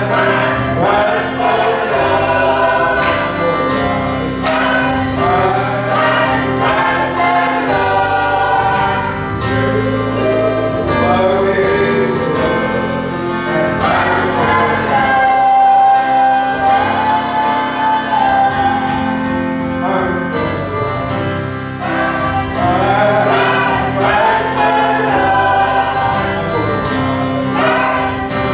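Gospel choir singing a worship song with band accompaniment of bass and drums, with a long held note about halfway through.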